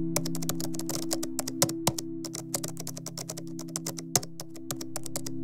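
Computer keyboard typing: fast, irregular keystroke clicks, press and release, from sampled keyboard foley. Background music with steady low sustained chords plays underneath.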